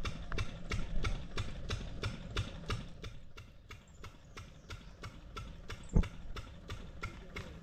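Steady rhythmic clicking, about four clicks a second, with one sharp thump about six seconds in.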